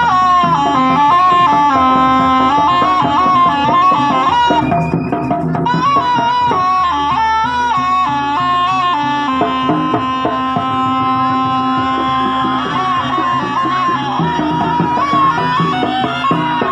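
Jaranan ensemble music: a shrill shawm-like reed trumpet (slompret) plays a stepping melody over kendang drums and a steady low gong drone. About ten seconds in, the reed holds a few long notes.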